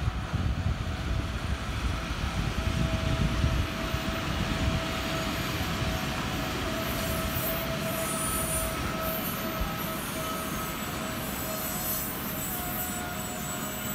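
VL11M two-section electric locomotive hauling a freight train past at close range: heavy rumble of wheels and running gear, strongest in the first few seconds, with a steady high whine over it. A second, higher whine joins about halfway through.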